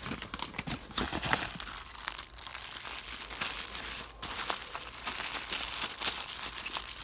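Packaging being handled: paper and plastic crinkling and rustling, with many small sharp crackles, as the parts are taken out of the box.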